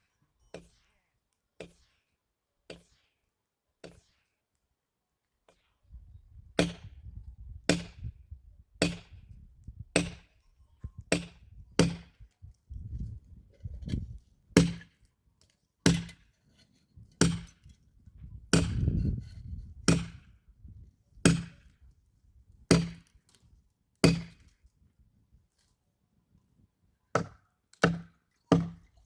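Axe chopping firewood: sharp, regular strikes about once a second, faint at first and louder from about six seconds in, with a short pause before a last few strikes near the end.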